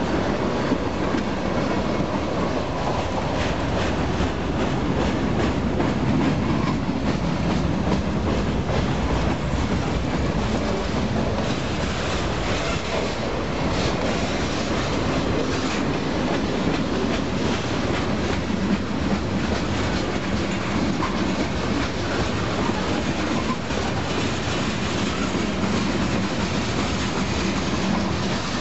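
Freight train cars, tank cars and lumber flatcars, rolling past: a steady rumble of steel wheels on rail with repeated clicks.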